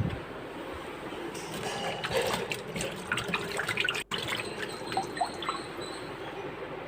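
Fruit being washed by hand in water: splashing and dripping, with scattered small clicks and splashes through the middle.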